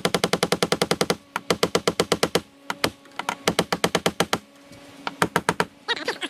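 Claw hammer driving washered roofing nails through a corrugated Ondura roofing panel. The blows come in rapid runs of even strikes, four runs with short pauses between them.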